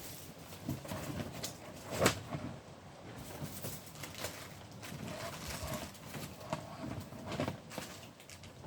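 Scattered light clicks and knocks of parts and tools being handled, with one sharper knock about two seconds in.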